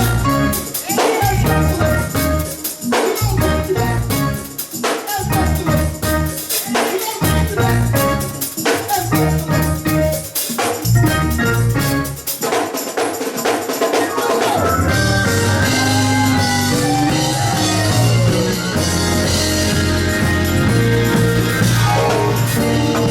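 Church band music with a drum kit and tambourine playing punchy, stop-start hits. After about fourteen seconds this gives way to held chords over a steady bass.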